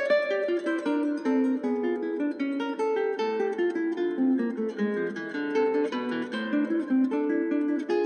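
Background music: an acoustic guitar picking a quick melody of plucked notes.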